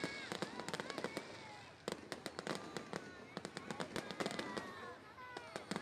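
Fireworks going off: many sharp bangs and crackles in quick succession, with a brief lull about two seconds in.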